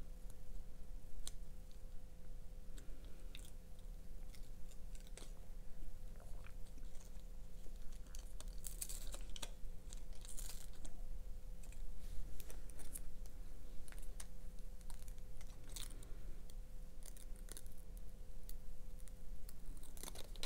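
Hands handling rhinestone mesh ribbon and its paper backing while wrapping a small bottle cap: scattered light clicks and crinkly rustles, busiest near the middle. A faint steady hum runs underneath.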